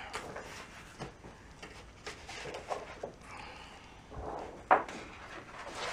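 Thin white plastic sheet from an LCD TV's backlight being lifted and handled off the metal back chassis: soft rustling and flexing with small clicks, and one sharper click near the end.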